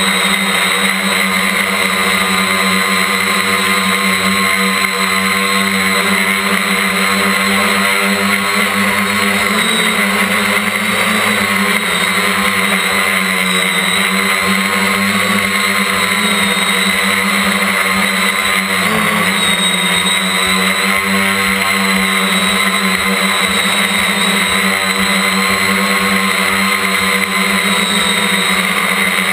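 Quadcopter's electric motors and propellers buzzing in flight, heard from the craft's own frame. The drone is steady and high-pitched, with its pitch wavering slightly and dipping briefly about two-thirds of the way through.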